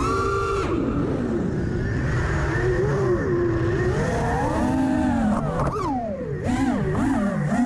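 Electric whine of an FPV quadcopter's four Emax 2207 2550KV brushless motors on 5-inch tri-blade props, heard from the onboard camera, over a rushing noise. The pitch swoops up and down with the throttle, in quicker, deeper swings near the end.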